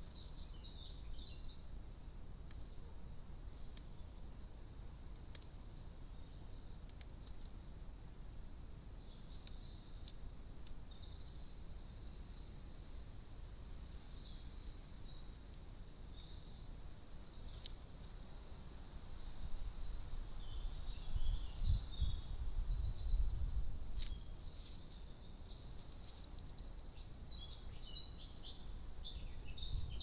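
A small bird repeating one short, high, downward-sliding call over and over, a little more than once a second, over a faint steady background hiss. A low rumble comes in past the middle for a few seconds.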